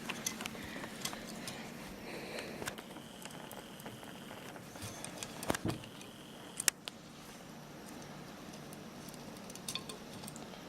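Faint, scattered small metal clicks and taps as a screwdriver starts a small screw into the frame of an 1879 Reichsrevolver, with one sharper click about two-thirds of the way through.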